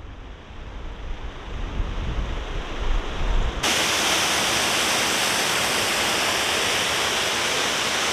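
Wind buffeting the microphone, then about three and a half seconds in a sudden change to the steady rush of a small waterfall pouring into a fast stream.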